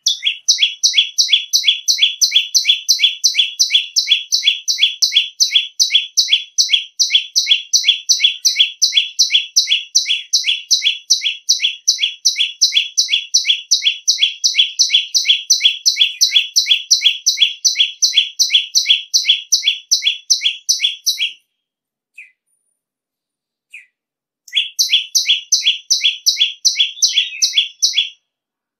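Tailorbird (prenjak lumut) giving its loud, shrill call: one short note repeated about three times a second in a long, even series, breaking off for about three seconds near the end with only a couple of faint notes, then starting again.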